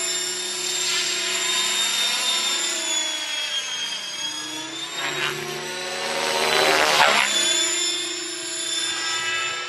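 Radio-controlled model helicopter flying: its rotor and drivetrain give a steady whine whose pitch slides up and down as it manoeuvres. It grows louder to a peak about seven seconds in, then eases off.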